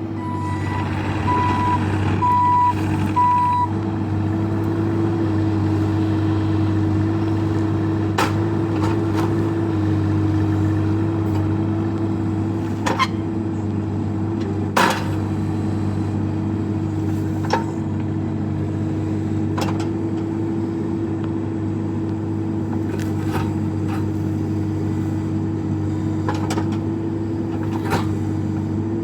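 Bobcat E26 mini excavator's diesel engine running steadily while it works, its travel alarm beeping several times in the first few seconds as the machine tracks. A few sharp knocks come through at intervals.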